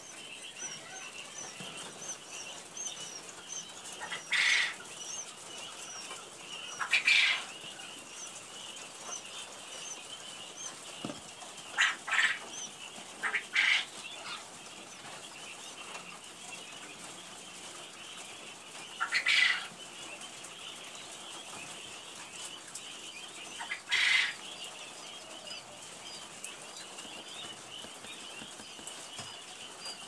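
A crowd of newly hatched quail chicks peeping in a high, dense, continuous chorus. Six short, louder rustling bursts are scattered through it.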